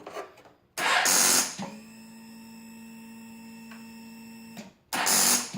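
A 2007 Kawasaki ZX-10R making the clicking noise of a bike that will not start when the starter is pressed. There is a loud harsh burst about a second in, then a steady electric hum, then another burst near the end. The noise comes from under the tank, though the battery is new and fully charged.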